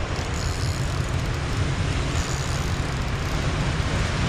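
Steady rumble of wind on the microphone mixed with the wash of surf breaking on a rocky shore.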